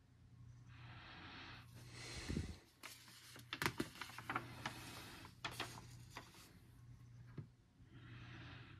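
A coloring book's paper page being turned: a handling swish, then a run of sharp crackles and rustles as the page bends over, with soft breaths before and after.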